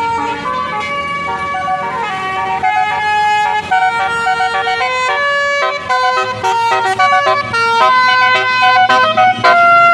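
Bus basuri telolet horn playing a tune: a string of stepped notes from several horn trumpets sounding together, each note held briefly before jumping to the next, growing louder in the second half.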